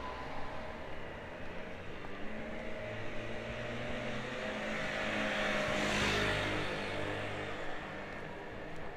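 A vehicle passing by, its running noise and hum swelling to a peak about six seconds in and then fading.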